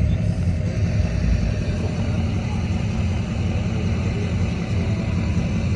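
Steady low rumble of car engines running.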